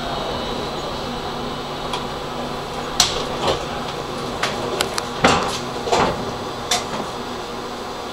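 Cab of a Karlsruhe tram standing at a stop: a steady electrical and ventilation hum. From about three seconds in, a series of sharp knocks and clatters comes at uneven intervals.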